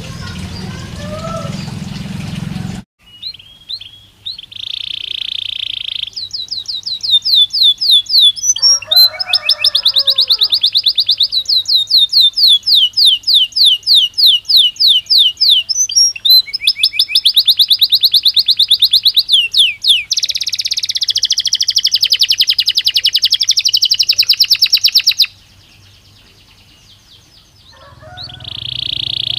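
Belgian canary singing: long rolls of very fast, evenly repeated high notes, one run following another with short breaks. It opens with a few seconds of hiss and low hum, and the song drops out briefly near the end before starting again.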